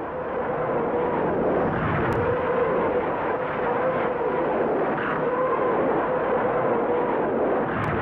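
Katyusha rockets firing in a salvo: a continuous dense rushing roar with a wavering howl running through it, rising and falling in pitch.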